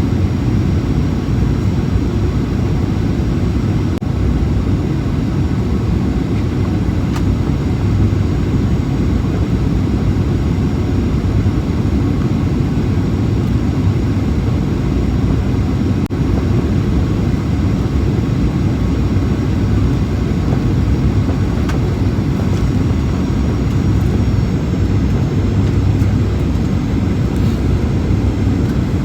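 Airliner landing, a steady low rumble of jet engines and rushing air that holds unchanged throughout.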